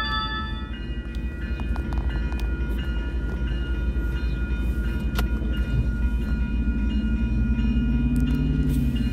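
Union Pacific diesel locomotive approaching under power: a deep rumble, with an engine drone that rises and grows louder near the end. The crossing's electric bells ring steadily over it.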